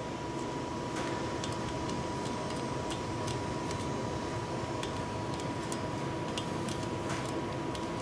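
Ratchet clicking in short irregular ticks, one or two a second, as a socket on an extension turns a nut on the starter solenoid terminal, over a steady background hum with a faint high whine.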